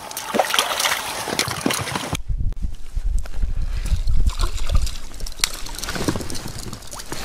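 Water splashing and sloshing close to the microphone for about two seconds, then an abrupt change to a low rumbling handling noise from the inflatable boat and gear.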